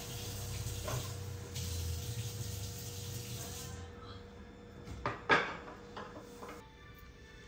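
Water running from a kitchen tap into the sink, shut off about four seconds in, then dishes knocking as they are handled, with one sharp clack about five seconds in.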